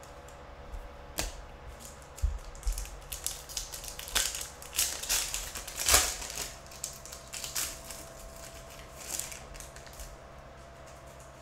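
Foil wrapper of a Donruss Optic trading-card pack crinkling and tearing open by hand, a dense run of sharp crackles that is loudest around the middle.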